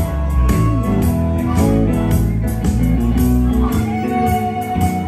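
Live blues band playing electric guitars and harmonica over a steady beat, with a long held note about four seconds in.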